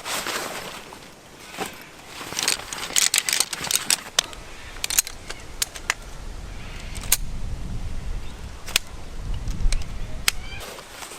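Camping gear being handled and unpacked: a run of sharp clicks and clinks, like carabiners and metal fittings knocking together, thickest in the first half. A low wind rumble on the microphone runs through the second half.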